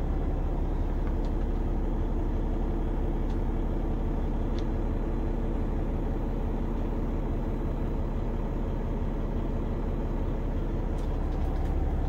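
Peterbilt 389's diesel engine idling steadily, heard from inside the sleeper cab, with a few faint clicks.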